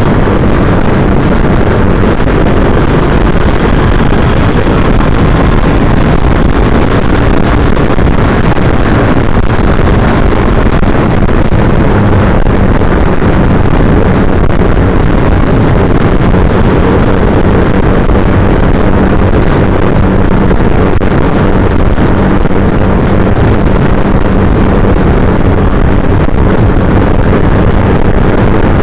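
Heavy, steady wind noise on the microphone over the even drone of a 2010 Triumph Bonneville T100's air-cooled parallel-twin engine cruising at road speed.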